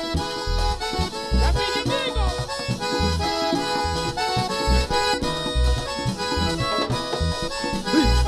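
Vallenato band playing live, led by a button accordion playing a melody over a pulsing bass.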